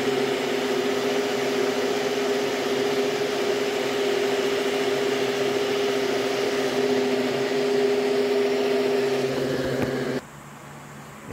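Electric countertop blender running steadily at speed, blending a thick avocado drink. Its motor hum cuts off abruptly about ten seconds in.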